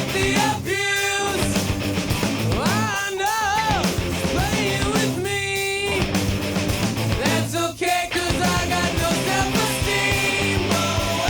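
Rock music with electric guitar and a sung or lead melody line.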